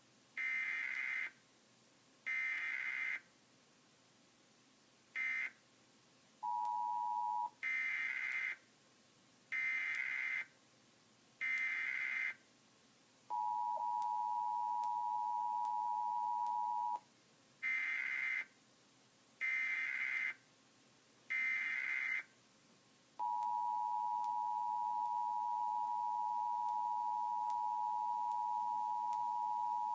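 Emergency Alert System test signals: groups of three short, buzzing SAME digital header bursts, each about a second long, alternating with the steady two-tone EAS attention signal (853 and 960 Hz). The attention tone sounds briefly at first, then for about four seconds, then for about seven seconds near the end, marking a Required Monthly Test being relayed.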